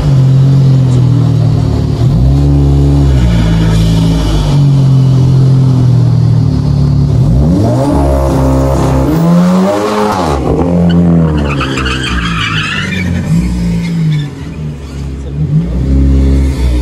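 Car engine held at high revs, dipping and picking up again, with tyres squealing loudest around the middle, as a red Volkswagen Golf hatchback spins donuts on concrete.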